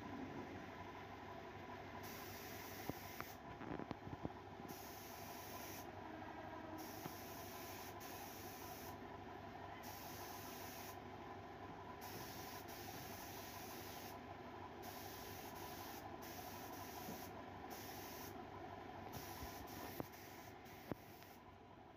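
Industrial sewing machine running steadily with a low hum and hiss as it stitches through padded upholstery fabric, with a few faint knocks.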